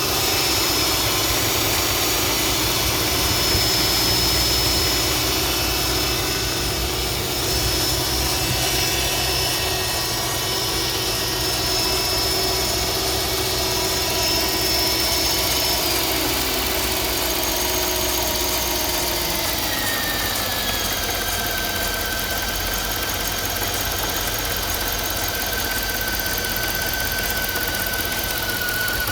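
Mercedes-Benz M273 5.5-litre V8 idling just after a start, with an irregular, non-rhythmic rattle whose cause is still unknown; the owner wonders whether the variable intake manifold or the cooling system is to blame. Steady whining tones run over the idle, and some of them slide down in pitch about two thirds of the way through.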